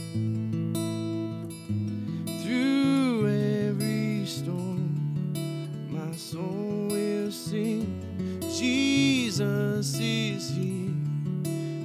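A man singing a slow song to his own strummed acoustic guitar, holding long notes.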